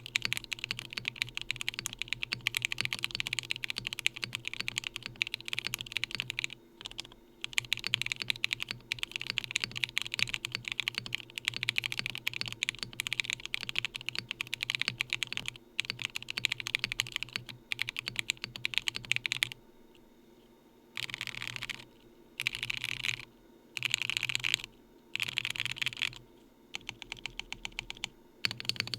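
Mechanical keyboard (June by Hibi with SOTC switches, FR4 plate and Osume Mochi keycaps, silicone tray mount, no dampening) being typed on steadily and fast. After a brief pause about two-thirds of the way through come several short, very rapid bursts of keystrokes, then ordinary typing again.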